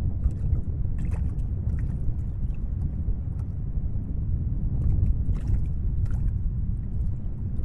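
Steady low rumble of wind on an outdoor webcam microphone, with a few faint scattered clicks and ticks.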